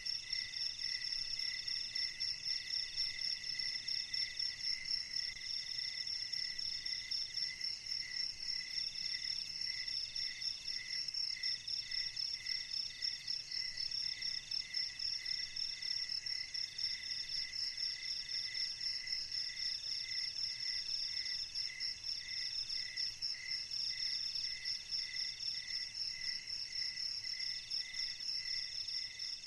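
Night chorus of crickets: several fast, pulsing trills at different pitches running together, with one higher trill starting and stopping every second or two.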